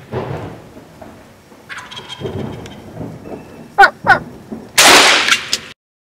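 Wild turkey gobbling several times, with two very loud, sharp calls a little under four seconds in. A loud blast with a long noisy tail follows about five seconds in and cuts off abruptly.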